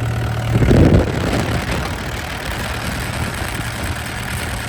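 Bobcat E80 excavator's Yanmar diesel engine idling steadily. A brief, loud rush of low noise comes about a second in.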